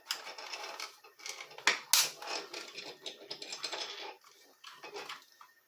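Plastic housing of a Black & Decker auto clamp being handled and worked apart during disassembly: a run of clicks, scrapes and rattles of hard plastic parts, with the sharpest click about two seconds in. It goes quiet a little after five seconds.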